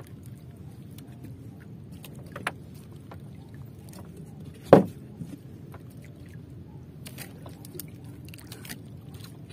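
Small wooden outrigger boat at sea: a steady low wash with faint scattered clicks, a small knock about two and a half seconds in and a loud sharp knock a little before halfway through.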